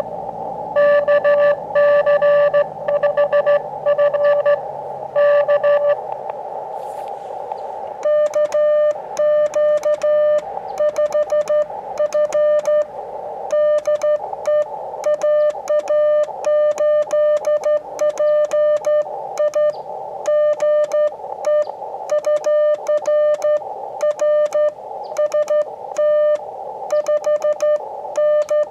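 Morse code (CW) tones from an Elecraft KX2 transceiver, keyed on and off at one steady mid pitch. For about the first six seconds it is a received signal heard through steady receiver hiss; from about eight seconds in it is the operator's own keyed sidetone as he sends on the key, clean and regular without the hiss.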